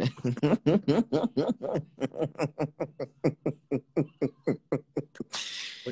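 A man laughing hard: a long run of short 'ha' pulses, about five a second, each dropping in pitch and gradually getting quieter, ending in a breathy gasp.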